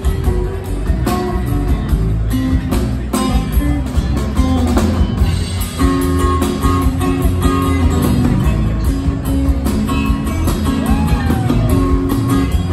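Live band playing: strummed acoustic guitar over drum kit and upright bass, heard from the audience through the hall's sound system.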